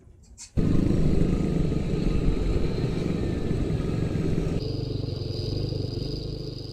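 Motor vehicle engine and road noise, starting abruptly about half a second in. About two-thirds of the way through, the sound shifts and a thin, steady high whine joins it.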